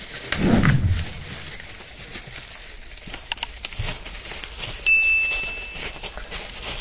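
Plastic mailer bag and bubble wrap crinkling and rustling as hands pull a box out of its packaging. A short steady high tone sounds about five seconds in.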